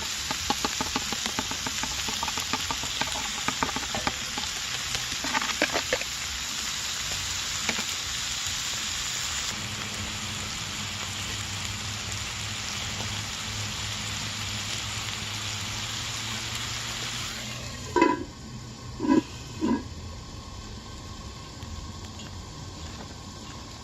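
Food sizzling and crackling in a hot pan, with fast spattering crackles in the first few seconds. The sizzle cuts off suddenly about 18 seconds in, and three short knocks of a utensil or pan follow.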